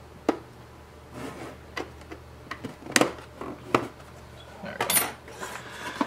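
Several sharp plastic clicks and snaps, with light handling noise between them, as the bottom cover of an Apple AirPort Extreme router is pried up and pulled off its case.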